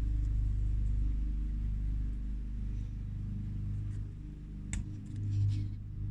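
Background music: a low, steady, bass-heavy track.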